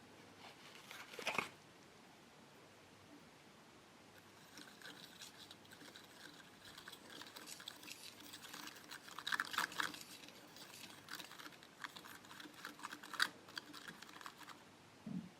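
Close-up crinkling and clicking of a plastic packet from a DIY candy kit being handled: one sharp crackle about a second in, then a long run of irregular small crinkles and taps with louder bursts in the middle and near the end.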